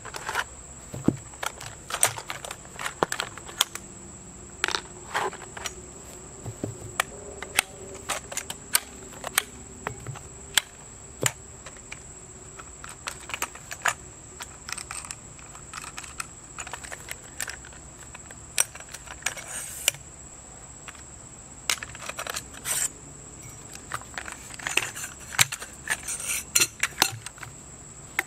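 Blue Dot Outfitters Kona kayak cart being taken apart by hand: irregular clicks, clanks and rattles of its parts being pulled off, handled and packed away.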